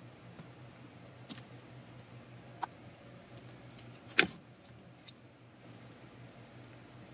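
Chunks of solid lard being handled and put into a metal pot: three short sharp knocks, the loudest about four seconds in, over a faint steady low hum.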